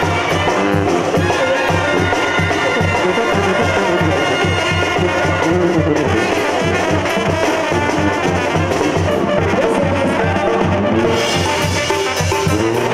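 Live banda sinaloense music: brass playing over a steady beat from the tambora bass drum and the timbales.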